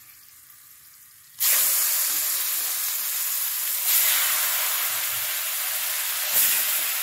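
Seasoned chicken pieces going into a pot of hot oil where curry powder, garlic and pepper have been browned: a sudden loud sizzle starts about a second and a half in and holds steady. It swells twice more as further pieces are added.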